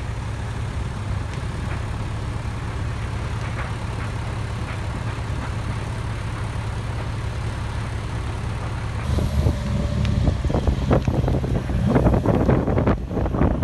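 Fire engine's diesel engine running with a steady low rumble. About nine seconds in, the rumble shifts and irregular knocks and crackling take over.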